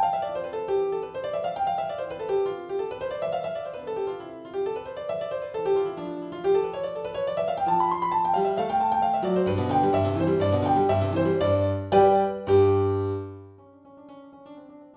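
Background piano music: rising and falling runs of notes, joined by low bass notes about two-thirds of the way in, with a loud chord near the end before it drops to a quieter passage.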